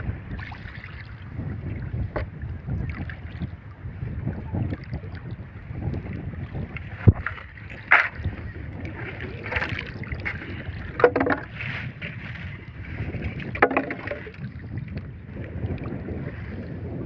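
Wind and water noise aboard a small fishing boat at sea, with a few sharp knocks against the boat, the loudest two about seven and eight seconds in.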